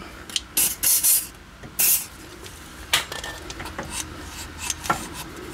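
Aerosol silicone spray lubricant hissing in three short bursts onto the rubber of a brake caliper piston, followed by a few light metallic clicks of tools and parts.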